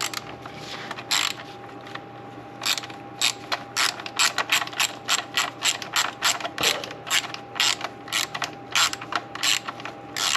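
Hand ratchet clicking in short back-and-forth strokes, driving a shallow socket on a small swivel to back out a hard-to-reach bolt. The clicks begin about two and a half seconds in and then run at roughly three a second.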